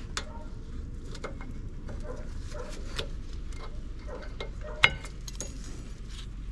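Scattered metallic clicks and taps of brake pads, clips and retaining springs being handled and fitted into a disc brake caliper, with one sharp clack about five seconds in, over a steady low rumble.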